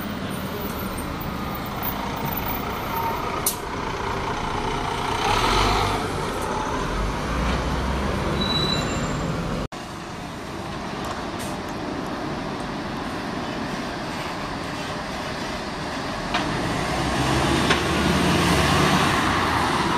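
Diesel buses and town traffic. A Dennis Trident double-decker pulls away, its engine growing louder about five seconds in; after a break, steady street traffic, and near the end a single-decker bus driving past, louder.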